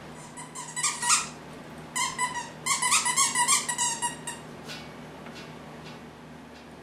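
Standard poodle chomping on a squeaky plush toy, making bouts of rapid high squeaks, the longest a quick run of squeaks about three seconds in.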